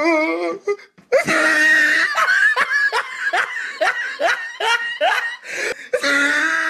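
A cartoon character's voice laughing in a long run of quick rising syllables, about three a second, over a held note, starting after a short pause about a second in.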